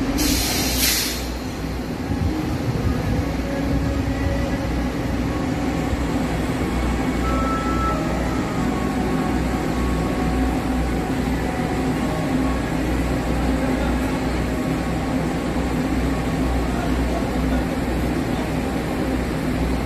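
Train at the railway station: a loud hiss for about the first second, then a steady low rumble.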